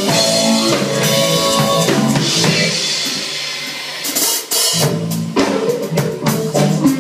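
Live rock band playing an instrumental passage: drum kit, electric bass and electric guitar. The low end thins out about three seconds in, then the full band comes back in with heavy drum hits just before the five-second mark.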